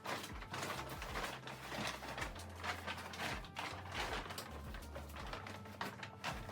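Irregular knocks, clatter and rustling from things being handled and set up, over faint background music.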